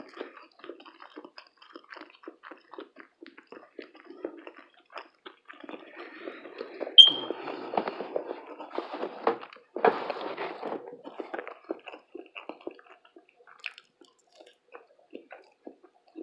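A person chewing food close to the microphone, with wet smacking and small irregular clicks throughout, heavier and louder between about six and eleven seconds in. A brief high ringing tick about seven seconds in is the loudest sound.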